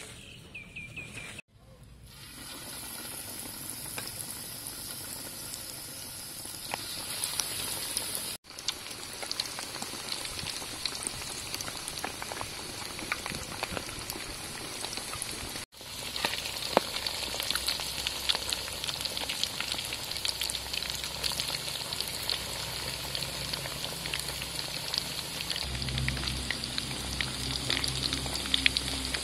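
Breaded chicken drumsticks deep-frying in hot oil: a steady sizzle thick with fine crackling and popping. The sound cuts off abruptly for an instant three times.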